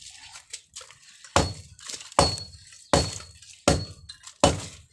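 Hammer blows breaking up concrete: five heavy, evenly paced strikes about three-quarters of a second apart, some leaving a short high metallic ring.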